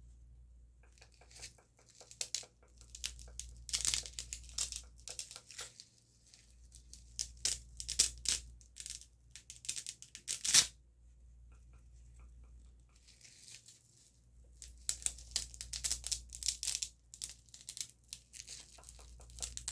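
Close-miked ASMR gripping and clicking sounds: rapid, crackly clicks and ticks that come in irregular bursts of a second or two with short pauses between.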